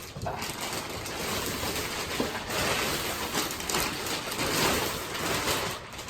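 Plastic packaging from a vacuum-packed mattress crinkling and rustling as it is handled, an irregular crackle.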